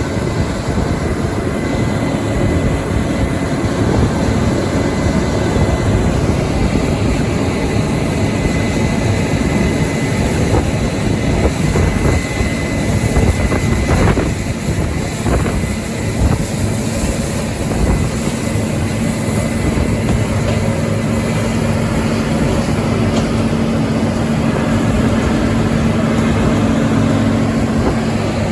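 Grain-harvest machinery running steadily: a loud engine drone with a thin high whine that fades out about halfway through, and a low steady hum coming in during the second half.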